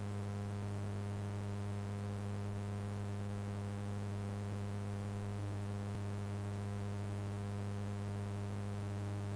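Steady electrical hum: a low tone with a stack of fainter evenly spaced overtones above it, unchanging in pitch and level.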